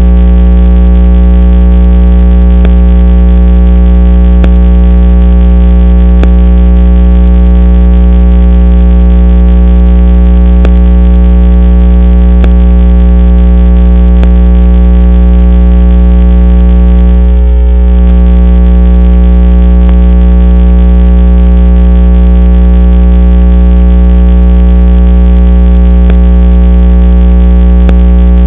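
Loud, steady electrical buzz from the Moultrie trail camera's own recording, a deep hum with many overtones, with faint ticks about every two seconds; it briefly drops out about 17 seconds in. No animal sounds stand out.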